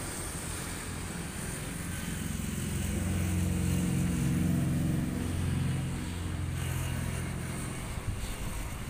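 An engine running with a low, steady hum that grows louder in the middle and fades again.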